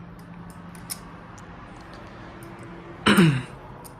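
Faint, scattered light clicks of a titanium balisong being handled, then about three seconds in a loud short vocal sound falling in pitch, like a grunt or sigh.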